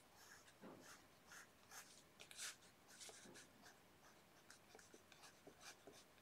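Faint scratching of a graphite pencil on drawing paper in quick, short, irregular strokes as eyelashes are sketched in.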